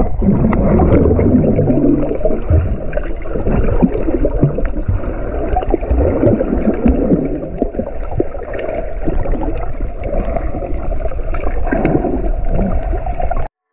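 Muffled underwater sound heard through an action camera's waterproof housing: a dense rush of moving water with irregular bubbling and gurgling. It cuts off abruptly near the end.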